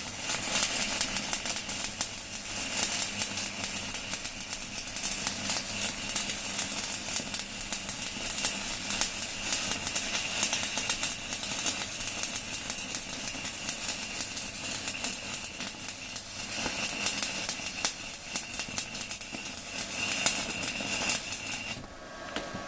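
Stick-welding arc from a small inverter welder at 160 A burning a 4 mm basic (UONI) electrode: a continuous loud crackle and sizzle of fast irregular pops. The arc breaks off near the end, leaving a quieter steady hum.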